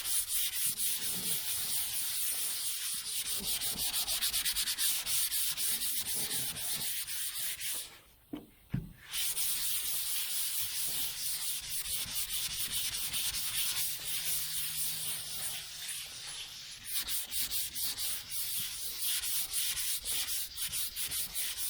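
Dry sandpaper rubbed by hand in quick circular strokes over primer on a car hood, a steady scratchy hiss. It stops for about a second around eight seconds in, then carries on.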